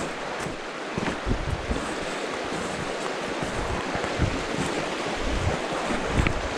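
Steady rush of a shallow freestone stream running over rocks and riffles, with irregular low rumbles of wind buffeting the microphone.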